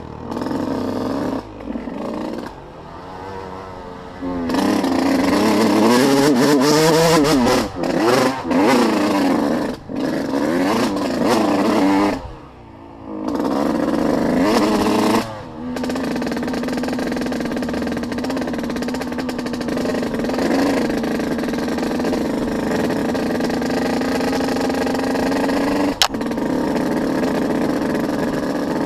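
Dirt bike engine being ridden hard on a trail: revving up and down with repeated quick throttle chops and gear-change dips for the first half, then running at a steadier pitch. One sharp click about three-quarters of the way through.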